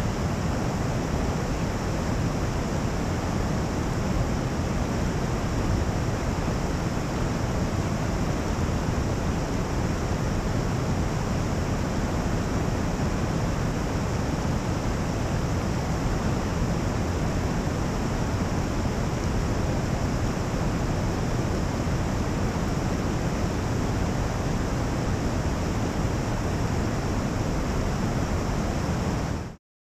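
Waterfall and rapids rushing over rock ledges: a steady, even rush of water that cuts off suddenly near the end.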